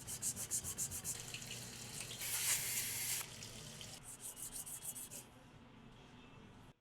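Rapid back-and-forth rubbing strokes, about eight a second, of abrasive on a Hamilton watch dial being refinished. About two seconds in the strokes blur into a steady rasp for a second. The strokes come back briefly and then fade away.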